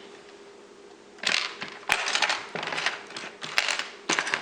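Small plastic LEGO pieces clattering and clicking as hands rummage through a pile of parts. The clatter starts about a second in and goes on in close bunches of sharp clicks.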